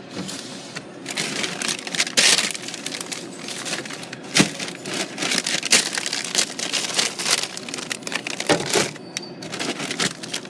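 Stiff plastic dog-treat bags crinkling and crackling as they are handled close by, an irregular run of crackles and rustles.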